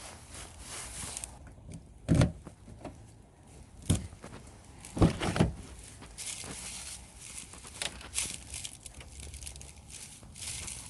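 Handling noises at a car door: a few sharp clunks about two, four and five seconds in, with rustling and scraping between them.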